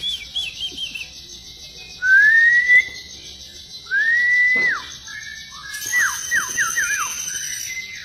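White-rumped shama singing loud, clear whistles: a rising whistle about two seconds in, another rising whistle that drops steeply about four seconds in, and a quick run of falling notes near the end.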